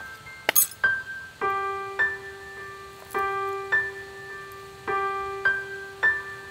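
Background music: a slow keyboard melody of single struck notes that ring and fade, over held lower notes, with a sharp click about half a second in.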